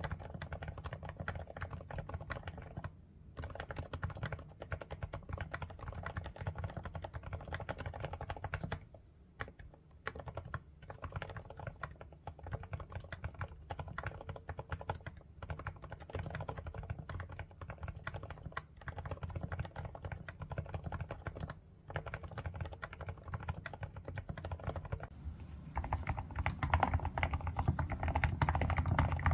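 Typing on a Groovestone GS85 mechanical keyboard fitted with low-noise Hanui switches: a continuous run of soft keystrokes with a few brief pauses, getting louder and denser near the end.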